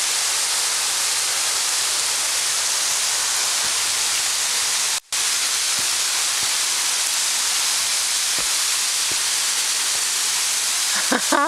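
Steady loud rushing of a waterfall, about 40 feet high, falling over rock. The sound cuts out for a split second about halfway, and a short exclamation is heard near the end.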